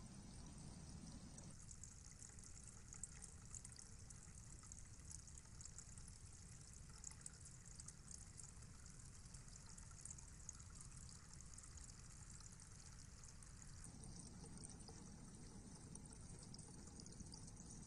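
Near silence: faint steady hiss and low rumble of an outdoor night camera's microphone. From about two seconds in until about fourteen seconds, a fainter, thinner hiss is dotted with soft crackling ticks.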